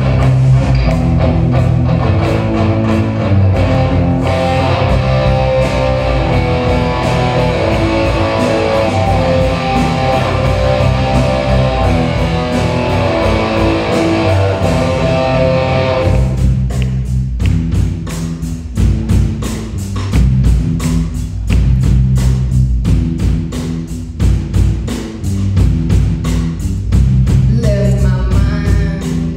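Live rock band playing: distorted electric guitars over a drum kit in a loud, full instrumental passage. About halfway through the guitars drop away, leaving drums and low bass notes, and a voice starts singing near the end.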